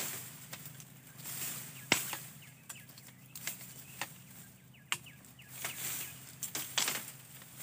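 A machete chopping at bamboo and branches: several sharp chops, the loudest about two seconds in and two close together near the end, with bamboo leaves rustling in between.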